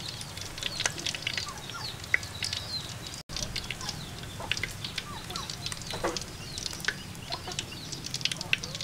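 Chickens clucking amid many short chirps from small birds, over a steady low background noise; the sound drops out for an instant about three seconds in.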